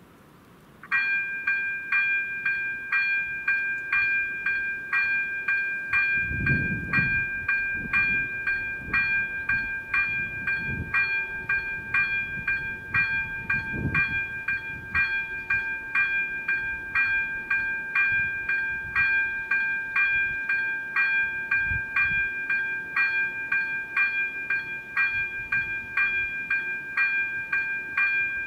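A pitched electronic warning signal that starts about a second in and sounds about twice a second without stopping, with a few low rumbles in the middle.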